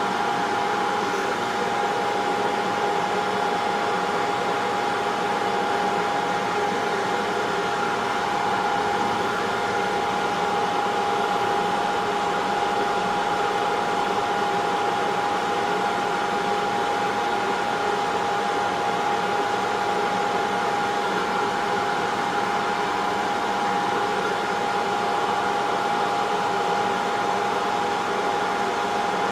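Hot air rework station blowing steadily: a continuous rush of air with a steady fan whine, heating the solder to free an HDMI port from the board.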